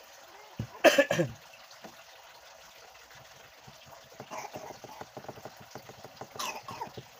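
A light knock as a smartphone is set down on a rubber repair mat, followed at once by a loud cough from a person. Scattered faint clicks and taps follow later.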